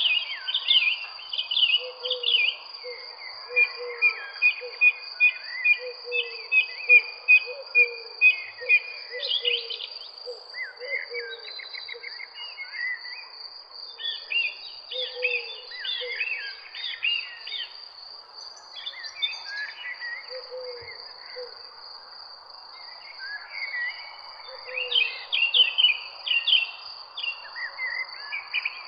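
Several songbirds singing and chirping in overlapping phrases, with a lower short call repeated now and then, over a steady high-pitched insect trill.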